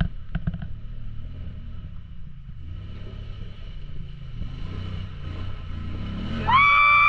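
Off-road vehicle engine running with a low rumble, with a few knocks near the start. About six and a half seconds in, a loud, steady high-pitched tone begins.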